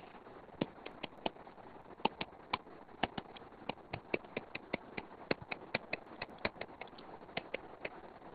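Stylus tip tapping on a tablet's glass screen during handwriting: an irregular run of light, sharp clicks, about four or five a second, starting about half a second in, over a faint steady hiss.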